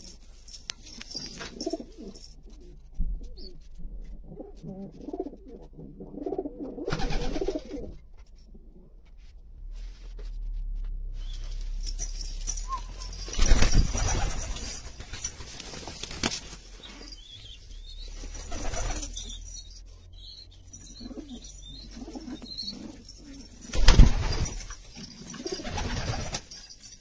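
Domestic pigeons cooing in a loft, a low repeated murmur that comes and goes. Two louder sudden noises stand out, one about halfway through and one near the end.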